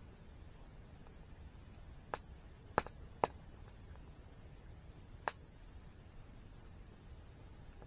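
Wood fire crackling: four sharp, separate pops, three close together a couple of seconds in and one more near the middle, over a faint steady high-pitched hum.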